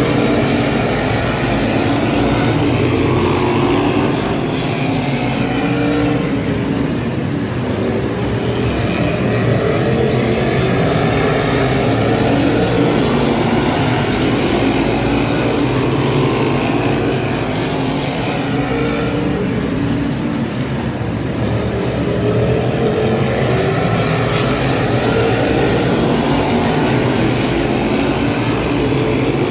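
A field of modified race cars running laps of a short oval, their engines passing continuously, each engine note rising and falling in pitch as the cars come by and move away.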